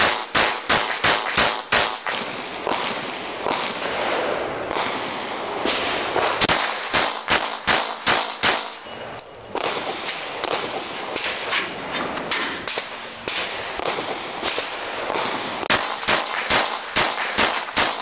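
Glock 22 .40 S&W pistol in a CAA Micro Roni stabilizer fired in three rapid strings of about seven to nine shots each, roughly four shots a second. The strings come at the start, about six seconds in, and near the end.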